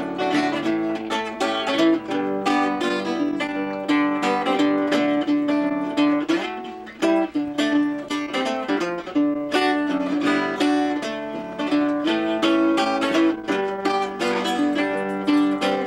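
Acoustic guitar played fingerstyle: a quick, busy run of plucked notes over a repeating bass, with a short lull about seven seconds in.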